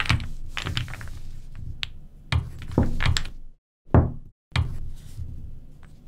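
Wooden toy blocks knocking as they are picked up and set down on a table: about a dozen short, sharp clacks at uneven intervals.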